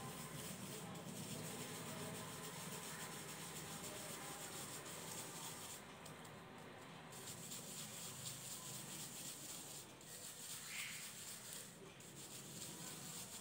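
Gritty rubbing and crunching of crushed mothball powder on a wooden surface, steady with a couple of brief lulls.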